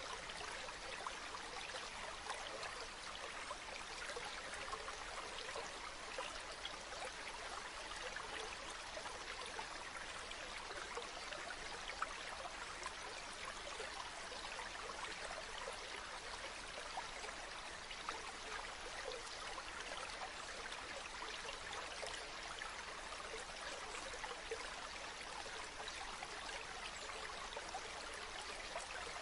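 Food frying in oil in a pan: a steady, dense sizzling crackle that does not let up.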